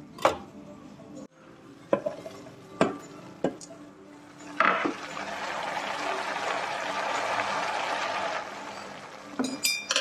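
Kitchen preparation sounds: a few sharp knocks over the first five seconds, then a steady rushing hiss lasting about four seconds, and a short run of clicks at the end.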